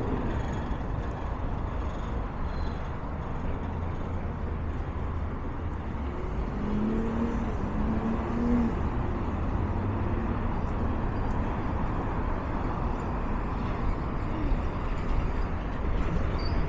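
Steady city street traffic: cars and other vehicles running along a busy multi-lane road, a continuous rush with a low engine hum underneath.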